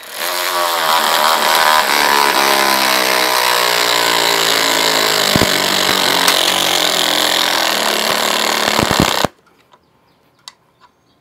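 Ryobi P344 18-volt cordless 3/8-inch ratchet running flat out for about nine seconds, driving a hex-head lag screw down into a wooden beam. Its motor tone sinks in pitch as it slows under the heavy load, then cuts off suddenly; the motor was working hard enough to get hot and give off a little smoke.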